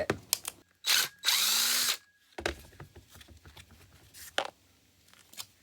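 Handheld power drill/driver run in two short spurts, the second lasting under a second with its motor whine rising as it spins up, followed by a few light clicks of parts being handled.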